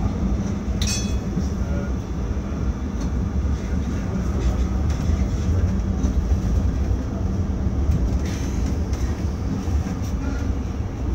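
DÜWAG Pt-Wagen articulated tram running along street track, heard from the driver's cab: a steady low rumble of wheels and traction motors, with a brief high squeal about a second in.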